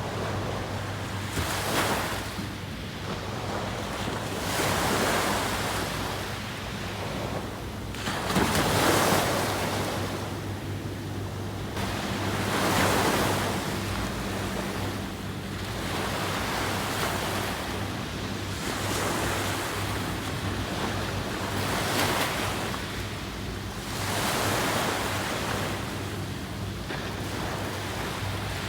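Ocean surf: waves breaking and washing up the shore, each surge swelling and fading every few seconds, with a faint steady low hum underneath.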